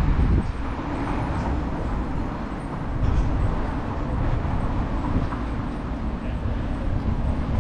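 Steady road traffic on a city street: an even rumble of passing vehicles that swells a little about three seconds in.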